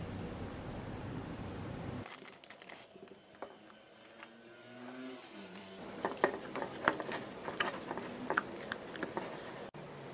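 Cream cheese being spread onto a whole-wheat tortilla on a plate: a run of sharp clicks and scrapes as the utensil works the cheese and meets the plate, starting about six seconds in. Before that, a steady low background rumble stops abruptly about two seconds in.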